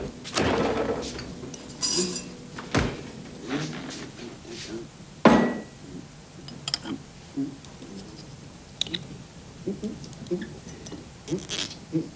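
Glass bottles and dishes clinking and knocking on a kitchen counter as they are handled, with a few sharper knocks, the loudest about five seconds in.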